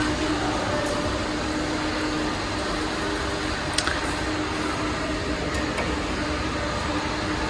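Steady hum and rumble inside a moving vehicle, with a faint steady low tone underneath and a single light click about four seconds in.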